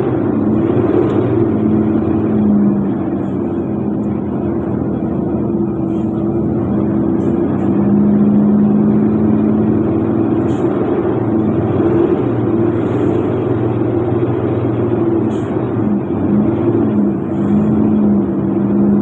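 A vehicle engine running steadily, heard from inside the cab, with a constant low hum whose pitch drifts slightly up and down over road noise.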